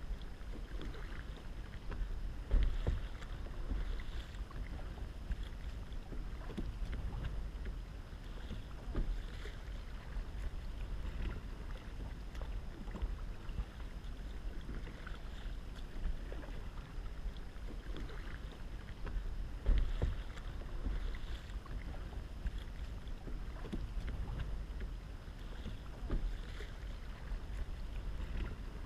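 Kayak paddle strokes dipping and splashing in calm water at a regular pace. Wind on the microphone makes a low rumble throughout.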